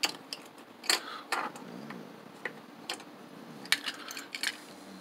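Small hard-plastic clicks and taps as a building-block figure is pressed into a toy Poké Ball and the two halves of the ball are snapped shut. There are about nine separate, unevenly spaced clicks.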